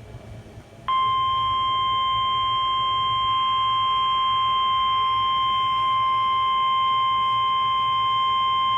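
NOAA Weather Radio 1050 Hz warning alarm tone: a single loud, steady, high beep that starts about a second in and holds unbroken and unchanging. It signals that a warning-level alert, here a severe thunderstorm warning, is about to be read.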